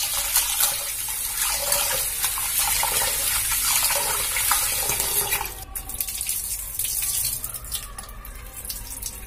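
Tap water pouring into a metal bowl while hands swish small fish around to rinse them. The pouring stops about five and a half seconds in, leaving quieter splashing of water in the bowl.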